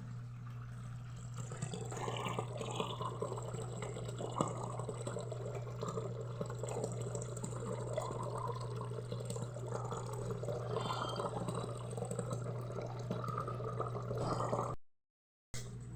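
Consul 12 kg washing machine starting its first spin, its motor humming steadily while soapy water rushes out through the drain; the rush of water comes in about a second and a half in. The sound drops out briefly near the end.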